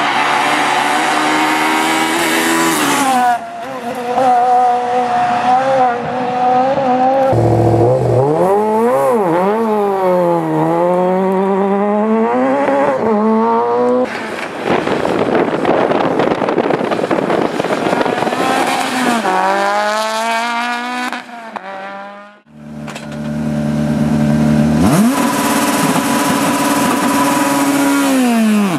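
Rally cars at full effort on a special stage, several in turn: the engines rev hard, with the pitch rising and dropping sharply at each gear change and lift. There are steady high-rev stretches, and a car passes with its note dropping and then climbing again near the end.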